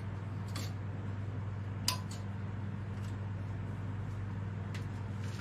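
A few light metallic clicks, the loudest about two seconds in, as the tractor's engine dipstick is handled and put back in its tube, over a steady low hum.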